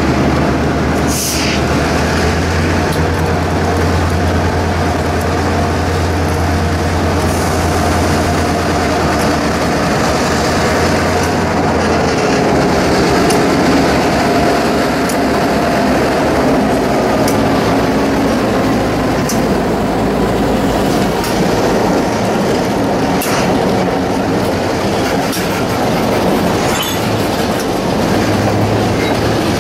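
Two EMD GP38-2 locomotives' two-stroke diesel engines running as they pass at close range, the low engine tone dropping away about twelve seconds in. Boxcars follow, rolling by with wheels clicking over rail joints and a faint wheel squeal.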